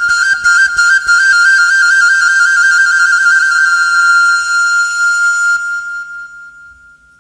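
Flute playing the closing phrase of a Thai song's backing track: a fast trill between two close notes, then one long held note that fades out near the end.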